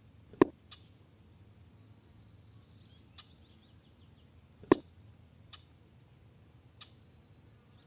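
Two shots from an EDgun Leshiy 2 PCP air rifle, about four seconds apart, each a short sharp crack followed a moment later by a fainter click.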